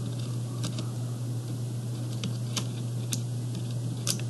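Scattered light clicks and taps of fingers prying and wiggling a laptop RAM stick out of its slot, over a steady low hum.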